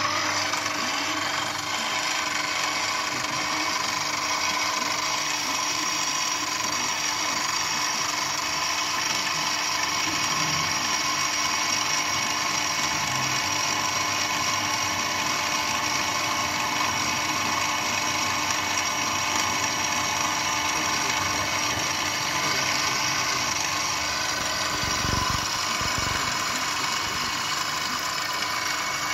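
Milling machine running steadily with a whine from many held tones as its 2.4 mm drill bores a tapping-size hole for an M3 grub screw through a steel wheel blank. A few low knocks come near the end.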